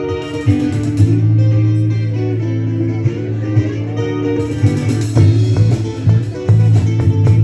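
Live rock band playing: a guitar intro over a held low bass note, with drums and cymbals coming in about halfway through.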